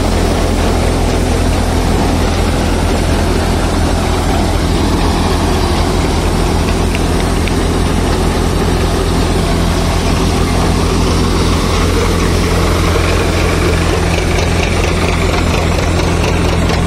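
Swaraj 744 XT tractor's three-cylinder diesel engine running steadily under load, driving a thresher through its PTO. The thresher drum whirs and rushes as mung bean plants are fed in. The sound is loud and unchanging.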